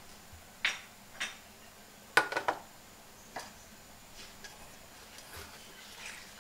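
A pot of tom yum broth boiling on a stove, with scattered sharp pops and ticks. The loudest is a quick cluster about two seconds in.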